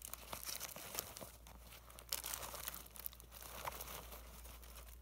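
Crinkling and rustling of plastic-wrapped chocolate bars and tissue packets being handled and stuffed into a backpack's lid pocket, with many small crackles and clicks.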